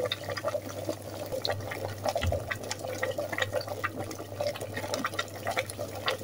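Water boiling in a plastic bucket heated by two electrode plates carrying current, bubbling and popping in quick irregular crackles over a low steady hum.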